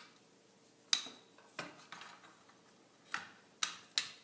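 Sharp plastic clicks and knocks, about five spread irregularly, as server case fans are slid into their slots in the chassis.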